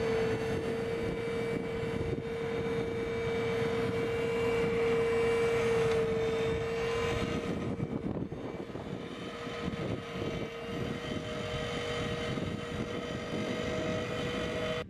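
Rolmex KR520 hydraulic reach mower's flail head running and cutting dry grass, with a steady high-pitched whine over a rushing noise. About halfway through the whine dips a little in pitch and level, and a second, higher tone creeps upward.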